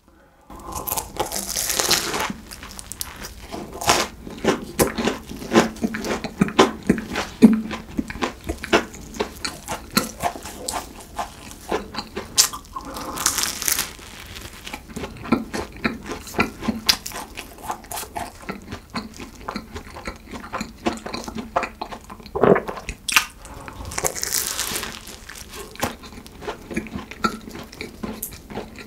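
Close-miked eating of a flaky, cream-filled croissant: crackling pastry crunch and chewing, with many small mouth clicks. Three louder crackling bursts are spread through, near the start, in the middle and past two-thirds of the way.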